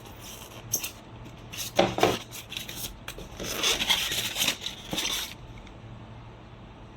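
Handling noise: rustling and rubbing in two bursts, the longer one about three seconds in, with a few sharp clicks near the start, over a low steady hum.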